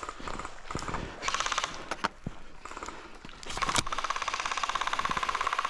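Airsoft replica firing on full auto: a short rapid burst of shots, then a longer burst of about two seconds near the end.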